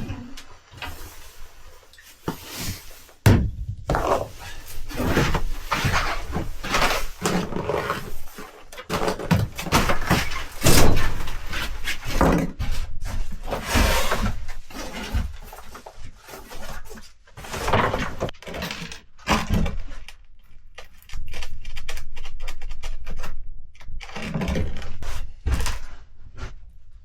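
Irregular thuds, knocks and rustling, as of things being handled and set down, with short pauses between bursts.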